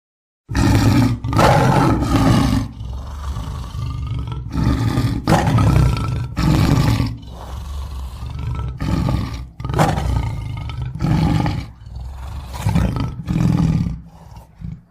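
A big cat roaring and growling repeatedly, in a series of loud roars of a second or two each with rumbling growls between them.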